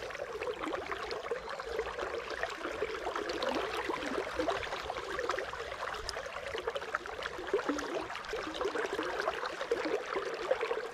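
River water flowing and babbling, a steady rushing with small splashy flickers.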